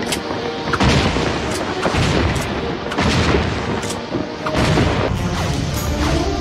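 Cartoon soundtrack: orchestral music with about four heavy booming hits, roughly a second apart.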